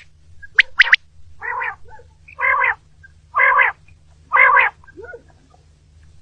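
Common quail calling: two sharp, high notes about a second in, then four harsh, raspy calls about a second apart.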